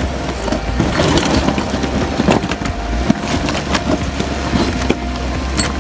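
Jeep engine running low and steady as the vehicle crawls over loose rock, with stones crunching and clicking irregularly under the tyres.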